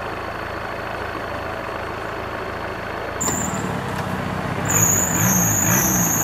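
Off-road 4x4 engines running as a convoy crawls up a forest trail. About three seconds in the sound gets louder and an engine revs up and down several times.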